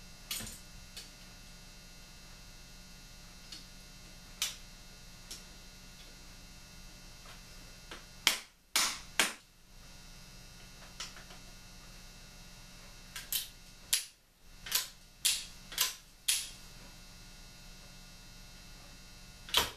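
Sharp clicks and knocks from working on a Colt Walker percussion revolver during final assembly: single strikes here and there, a quick group of three about eight seconds in, and a run of five or six from about thirteen to sixteen seconds. A steady mains hum lies underneath.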